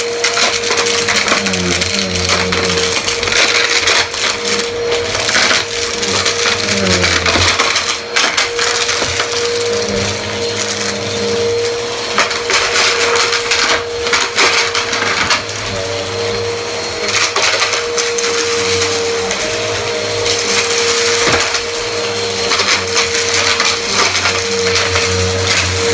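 Bagless upright vacuum cleaner running with a steady motor whine. Its brushroll crunches and crackles through small debris scattered on a rug as it is pushed back and forth.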